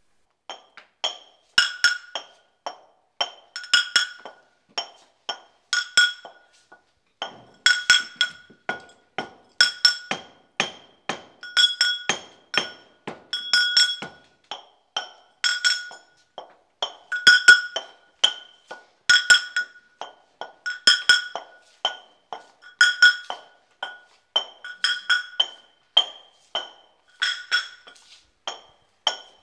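Brass mortar and pestle (hawan) being pounded over and over, about two or three strikes a second with a heavier stroke roughly every second, each strike ringing with a bright metallic clink. Mahlab is being crushed in it.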